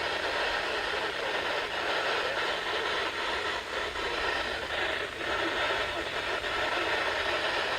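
Radio static: a steady hiss of noise from a broadcast receiver, with no clear voice or alert tones.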